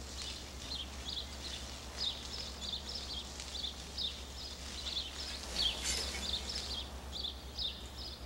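Thick prime rib steak sizzling in a very hot skillet during blackening, a steady run of small irregular crackles and pops as the butter and seasoning brown into a crust.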